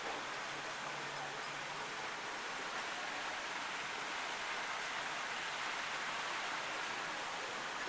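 A steady rushing noise that holds an even level throughout.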